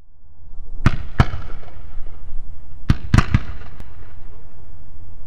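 A run of sharp, irregular bangs over a steady low rumble, fading in from silence at the start: two bangs about a second in, a quick cluster of three near three seconds, and one more just before four.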